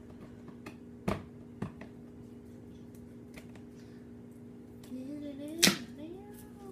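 Cardboard box being handled and pried open: a few sharp clicks and snaps of cardboard flaps and tape, the loudest about two-thirds of the way through, over a steady low hum. Near the end comes a short wordless sound whose pitch glides up and down.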